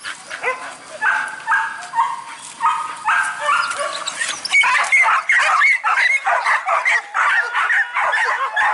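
A pack of boar-hunting dogs on leashes yelping, whining and barking in excitement. A few drawn-out whines come first, then from about halfway a dense, overlapping chorus of short yelps and barks.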